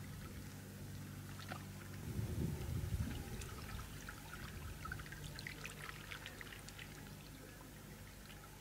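Small wavelets lapping and trickling over the pebbles at the water's edge, with scattered little splashes and clicks. A brief low rumble comes about two seconds in.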